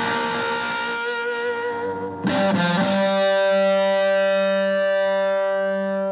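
Electric guitar played through a treble booster into a Fender Twin Reverb-style valve amp on the edge of breakup, slightly driven and bright. A ringing note fades; a little after two seconds a new note is picked and bent up, then held with a slight vibrato until it is cut off at the end.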